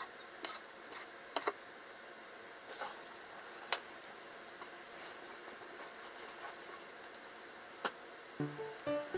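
Kitchen knife slicing a rolled Japanese omelette on a wooden cutting board: a few sharp knocks as the blade meets the board, then quieter handling sounds. Plucked guitar music comes in near the end.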